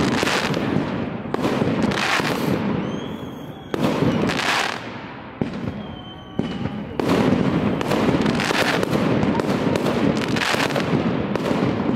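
Aerial fireworks shells bursting overhead with loud bangs, several seconds apart at first. From about halfway through comes a dense run of rapid crackling reports.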